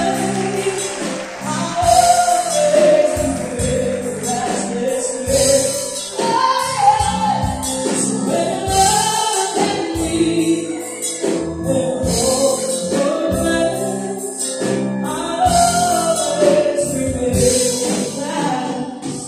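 Live band playing a song: a woman singing into a microphone over drums and electric guitar. The music dies away right at the end as the song finishes.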